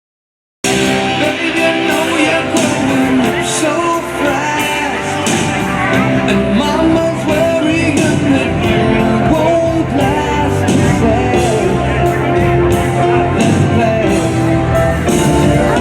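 Music with a singing voice over instruments, starting abruptly about half a second in.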